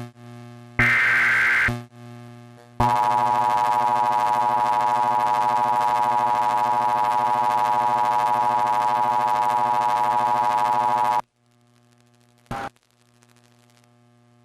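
Mock Emergency Alert System test: the last short screeching burst of the data header, then a harsh, steady attention tone for about eight seconds that cuts off suddenly. A low electrical hum stays underneath, with a brief blip about a second after the tone stops.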